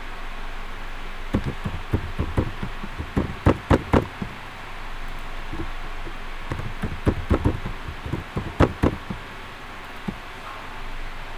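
Computer keyboard typing in two runs of quick keystrokes, each about two and a half seconds long, with a pause of about two seconds between them. A faint steady hiss lies underneath.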